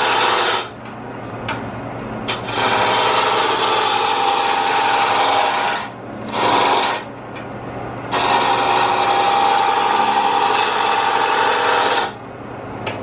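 Roughing gouge cutting a square pine 4x4 blank spinning on a Jet wood lathe: four loud cutting passes, the longest lasting about four seconds near the end, taking the corners off to turn it round. Between passes the lathe keeps running with a steady hum.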